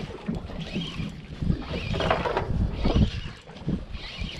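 Wind buffeting the microphone and water sloshing against a small boat's hull, with a faint high sound repeating about once a second.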